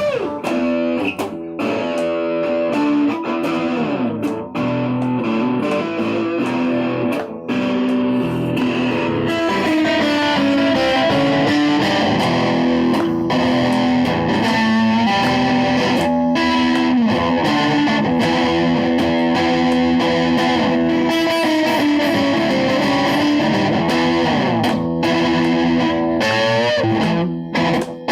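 Music: electric guitar played through effects and distortion, with held notes throughout.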